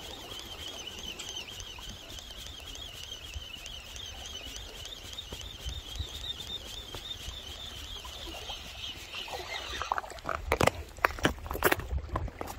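Spinning reel cranked steadily, a wavering whir, as a hooked young hairtail is reeled in. About ten seconds in the winding stops and a run of sharp knocks and clatters follows.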